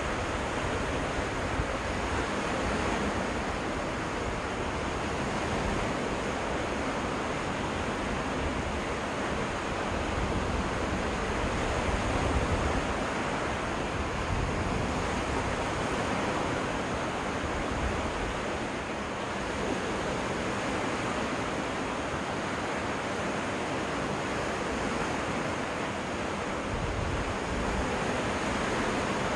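Waves washing steadily onto a freshwater lake beach, with wind rumbling on the microphone.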